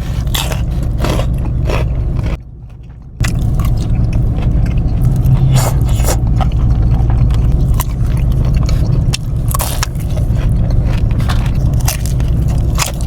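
Close-up biting, crunching and chewing of fried Chinese takeout food, a rapid series of crisp crackles, over a steady low hum. The sound drops out briefly a few seconds in.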